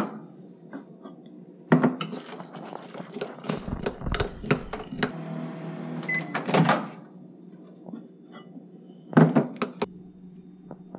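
Microwave oven running with a steady hum for a few seconds, then a short beep as it stops, followed by the clack of its door. Near the end, a few clinks of a metal spoon in a glass bowl as the melting white chocolate morsels are stirred.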